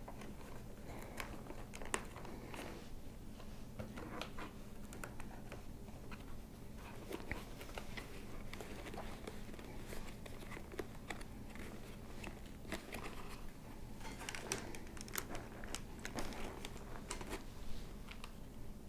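Hands working a motorcycle helmet's padded cheek pad back into its shell: scattered rustling and crinkling of fabric and foam with light plastic clicks, busier near the end.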